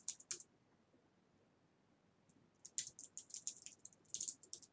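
Typing on a computer keyboard: a few keystrokes at the start, a pause of about two seconds, then a quick run of keystrokes through the second half.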